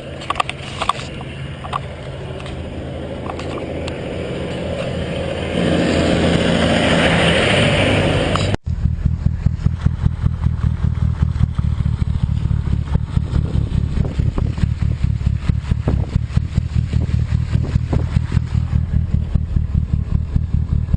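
Car driving: engine and road noise grow louder over the first eight seconds or so, with a few rising tones like an engine picking up speed. The sound cuts off abruptly, and a steady low engine drone with fast, regular clicking follows.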